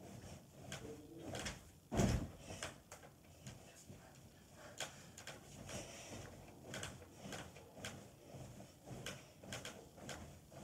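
A child bouncing on a bed: the mattress and bed frame give a series of soft knocks with the bounces, and one heavy thump of a landing about two seconds in.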